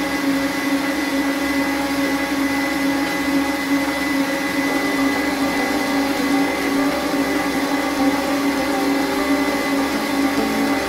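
Electric stand mixer running with a steady motor hum and whine.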